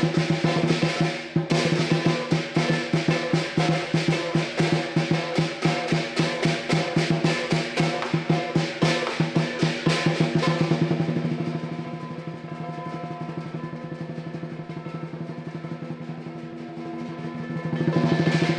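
Southern lion dance percussion: the big lion drum with cymbals and gong, beating fast, loud strokes, then dropping about ten seconds in to a soft, rapid drum roll that swells again near the end, with the gong and cymbals ringing underneath.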